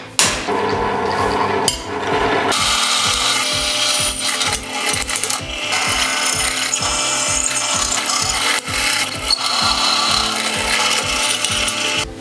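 Drill press boring a hole through a steel plate: a loud, steady cutting noise that starts about two and a half seconds in. Before that come a few sharp metallic knocks.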